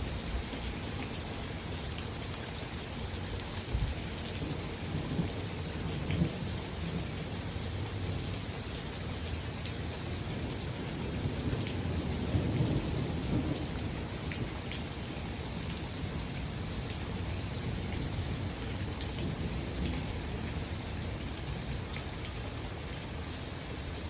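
Steady spring rain falling, with thunder rolling in a low rumble that swells around the middle and fades again.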